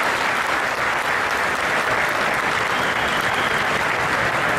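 A large crowd applauding steadily, a dense, sustained clapping.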